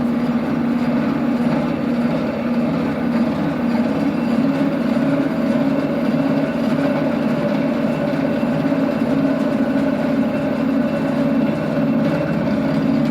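Amen universal milling machine running steadily, a constant mechanical hum with a steady whine from its drive.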